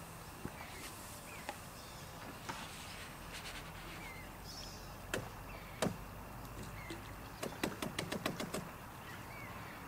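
Fishing tackle being handled at the bankside: a couple of sharp knocks, then a quick rattling run of clicks near the end. Birds chirp faintly throughout.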